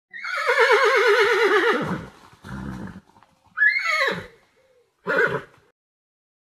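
A horse whinnying: one long whinny with a quavering pitch that falls away, then a short breathy blow and two shorter whinnies, the first rising then falling.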